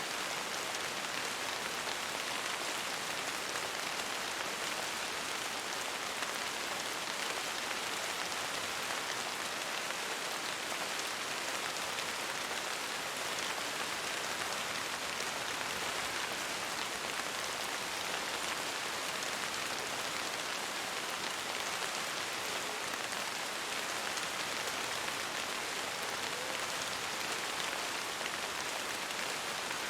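Steady rain: an even hiss that does not change in strength, with no thunder.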